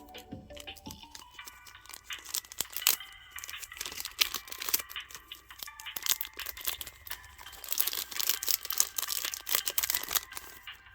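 Foil wrapper of a Pokémon booster pack crinkling and tearing open, with a long stretch of dense crackle near the end. Soft background music underneath.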